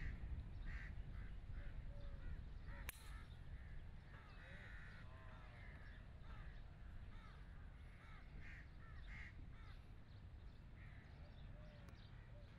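Birds calling over and over, with a low steady background rumble. A single sharp crack a little under three seconds in: a driver striking a golf ball off the tee.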